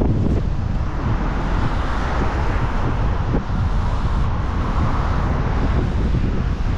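Gale-force wind buffeting the microphone: a heavy, uneven low rumble under a steady rushing hiss.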